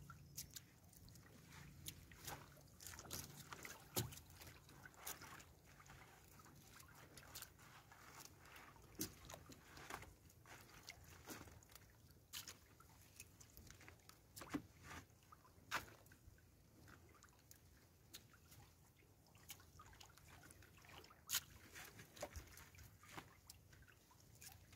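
Fishing net being hauled by hand over the side of a small boat: faint dripping and sloshing of water, with many scattered light clicks and knocks.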